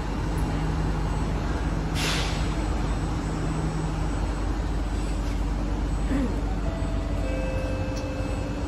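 Kawasaki C151A metro train pulling away from a station, heard inside the car: a steady low running rumble and hum, with a short hiss of air about two seconds in. A few faint steady whining tones come in near the end as the train gathers speed.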